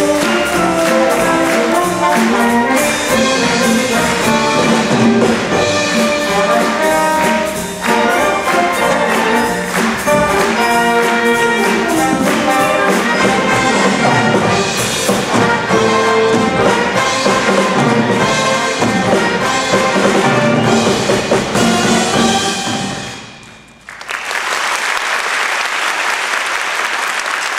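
School wind band of saxophones, trumpets, trombones, clarinets and drum kit playing a lively piece through to its final notes. Near the end the music stops and audience applause follows.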